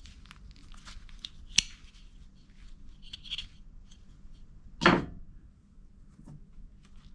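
Scattered small clicks and rustles of plastic toy guns being handled. A sharp click comes about a second and a half in, and a louder short pop near five seconds.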